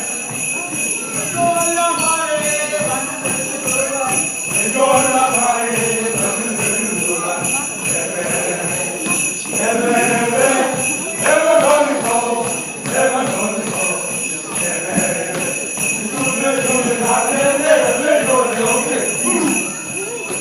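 Voices singing or chanting together over a continuous jingling of bells, in a Nuer dance performance.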